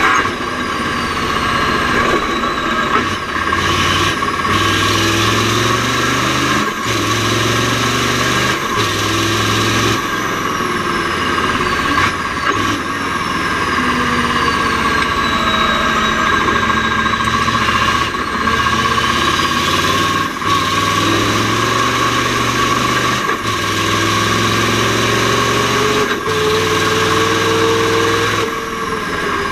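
Mack R-series V8 race truck engine running under load through the Roadranger gearbox. Its pitch climbs and drops back with a brief break at each gear change, about every two to three seconds, over a steady high whine.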